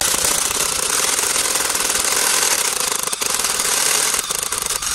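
Brushless cordless impact wrench running in hammer mode, drilling into a brick with a masonry bit through a drill-chuck adapter. It makes a steady, rapid hammering rattle that eases briefly a couple of times in the second half.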